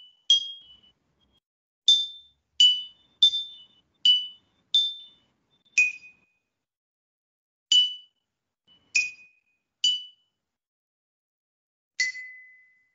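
A simple slow tune of single high, ringing struck notes on a small tuned percussion instrument, one note at a time at varying pitches, about eleven notes. Near the end, a lower note is held ringing longer, like a closing note.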